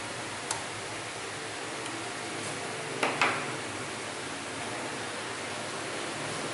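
Small screwdriver set down on a wooden desk, two quick knocks about three seconds in, after a light click near the start; a steady hiss underneath.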